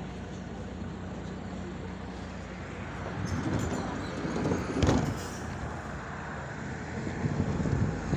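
MAZ-105 articulated city bus heard from inside while driving: a steady engine hum and road noise that swell about three seconds in. A sharp knock comes about five seconds in, with more rattling near the end.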